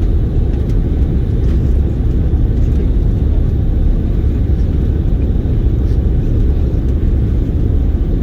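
Steady low rumble of an Airbus A330-300 airliner's cabin in flight: engine and airflow noise, even throughout.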